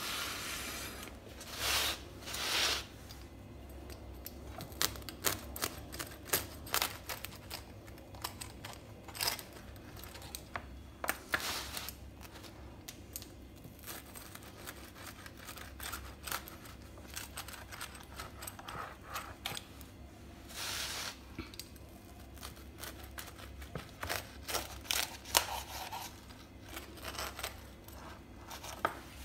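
Rolling pizza cutter slicing a toasted, meat-filled flatbread on a wooden cutting board, the crisp crust tearing under the wheel, after a spatula lifts it off a griddle. Irregular scrapes, clicks and knocks, with louder bursts of cutting noise near the start and about two-thirds of the way in.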